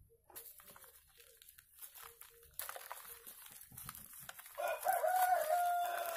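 A rooster crowing once, starting about four and a half seconds in: one long call held level, then dropping in pitch at the end. Before and under it, soil and a seedling's small cup rustle in someone's hands.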